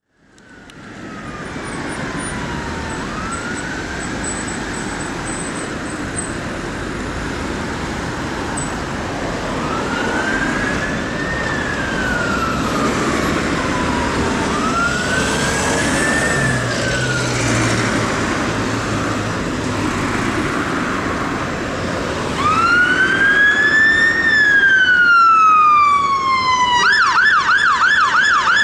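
Fire engine's siren on a slow wail, each long rise and fall growing louder as it approaches, switching to a fast yelp near the end, over the hum of road traffic.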